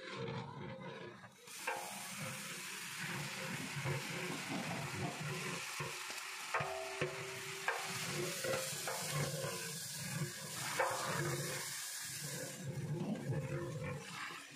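Sliced onions sizzling in hot oil in a large aluminium cooking pot, stirred with a long metal spatula that scrapes and knocks against the pot. The sizzle eases off near the end.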